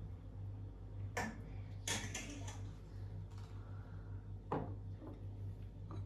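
A handful of light, irregularly spaced clicks and knocks, like small household objects being handled and set down, over a steady low hum.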